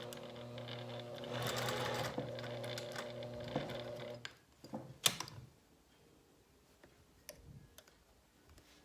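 Sewing machine running at a steady speed as it sews an edge stitch along a shirt cuff, stopping after about four seconds. A sharp click follows about a second later, then a few faint clicks.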